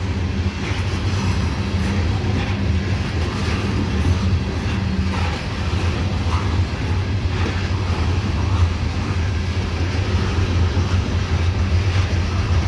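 Loaded coal hopper cars of a freight train rolling past close by: a steady, continuous low rumble of steel wheels on the rails.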